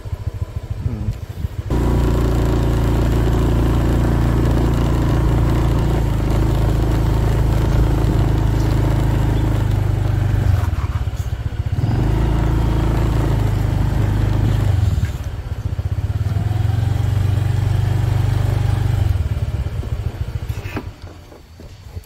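Motorbike engine pulling away about two seconds in and running steadily as it is ridden slowly along, the revs easing off briefly twice, then dropping away near the end as the bike stops.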